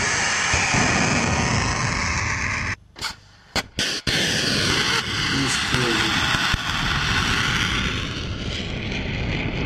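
Rocket exhaust of Bastion coastal defence P-800 Oniks supersonic anti-ship missiles at launch: a loud, steady rush that drops out for about a second about three seconds in, broken by a couple of short bursts, then comes back.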